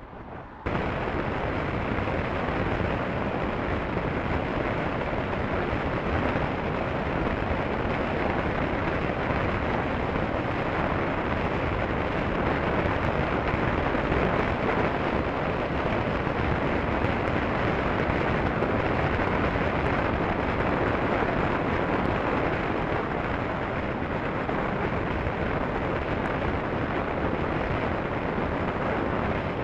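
Steady wind roar buffeting the microphone of a motorcycle-mounted camera at highway speed, with road noise mixed in; it comes in suddenly just under a second in.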